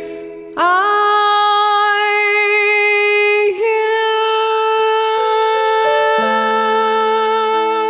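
A woman sings a long held note over a backing track of accompaniment chords. The note scoops up into pitch about half a second in and holds. There is a brief break around the middle, then she holds a second long note while the chords change underneath.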